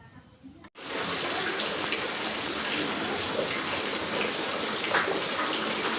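Rain falling steadily, a loud even patter that starts abruptly just under a second in.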